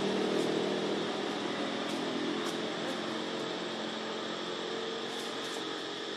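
A steady engine hum that slowly fades away, with a few faint ticks over it.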